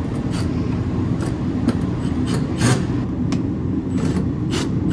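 Scraping, rubbing and a series of sharp clicks as the exhaust mount is worked off a diesel heater, over a steady low rumble.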